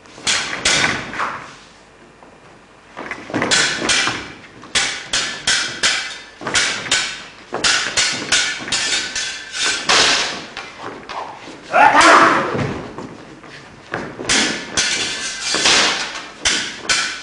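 Steel stage-combat swords clashing: runs of quick, sharp metallic blade strikes, each ringing briefly, with a pause of about a second near the start. A louder, longer sound stands out about twelve seconds in.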